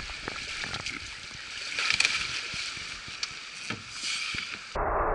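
Fast creek water rushing steadily alongside a jet boat, with scattered knocks and bumps as a man clambers over the side onto the hull. Near the end the sound cuts abruptly to a louder, steady rushing noise.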